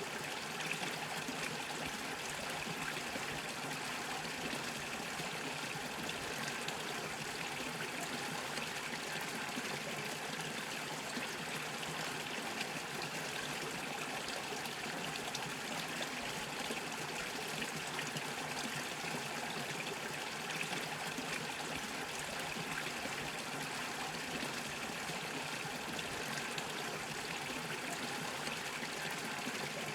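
Small brook bubbling and trickling over stones, a steady unbroken babble of running water.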